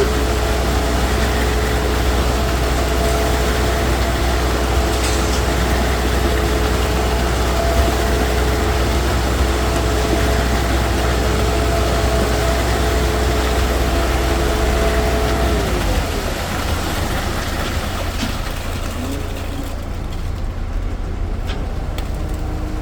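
Site concrete mixer's engine running steadily; about two-thirds of the way through its pitch drops and it runs more quietly.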